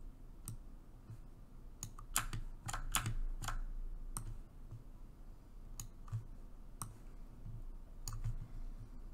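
Computer mouse and keyboard clicking: about a dozen sharp clicks at uneven spacing while node connections are made in 3D software.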